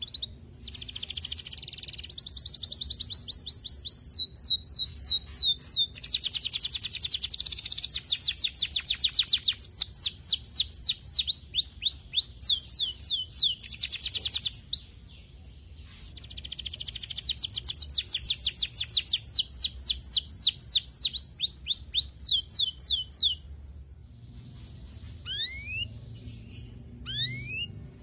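Domestic canary singing long, rapid trills of repeated high notes in two long phrases with a short pause between, then a few short rising whistles near the end.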